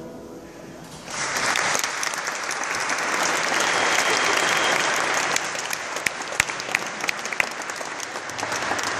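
Audience applauding, starting about a second in after a short quiet, with a few sharp, louder claps close by in the second half.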